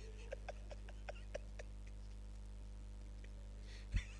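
Soft laughter, a quick string of short faint pulses in the first second and a half, over a steady low electrical hum from the sound system; a single dull thump near the end.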